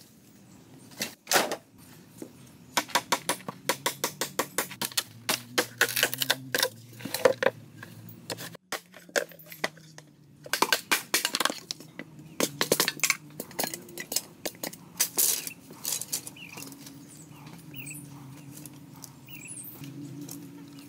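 Machete blade chopping into green bamboo: runs of quick, sharp knocks, several a second, in two long bursts, giving way to softer handling noise in the last few seconds.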